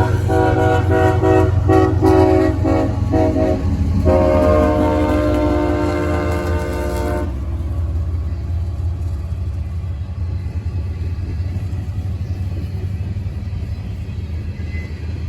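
Locomotive air horn sounding a chord in a quick run of short blasts, then one long blast that cuts off about seven seconds in. The rumble and rail noise of the passing train carry on after the horn stops.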